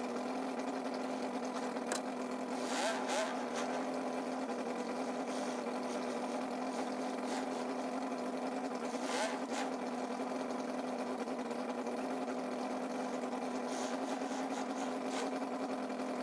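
Truck engine idling: a steady, even hum, with a few faint short hisses about three and nine seconds in.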